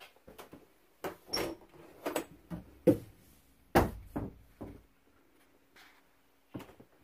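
Irregular knocks and clunks, the loudest about three and four seconds in: a door in a travel trailer's bathroom being opened and handled, with steps on the floor.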